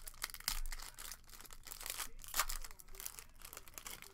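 Foil trading-card pack being pulled open and crinkled by hand: a steady run of sharp crackles and rustles.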